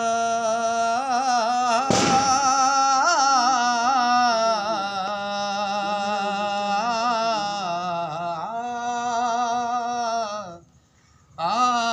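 A man's voice singing the wordless opening phrase of a qasida, holding long notes with slow wavering ornaments. There is a sharp knock about two seconds in, and a short break near the end before the voice comes in again.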